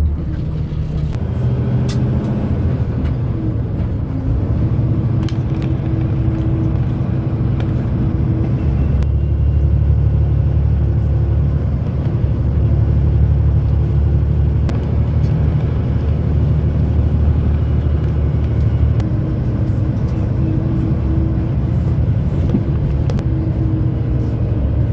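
A heavy truck's engine running under way, heard from inside the cab: a loud, steady low drone whose note shifts about a third of the way in and again near three quarters of the way.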